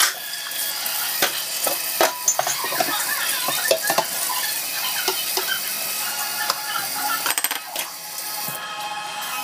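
Kitchen faucet running into a stainless steel sink, with dishes and a wire sink grid clinking and rattling in many sharp knocks.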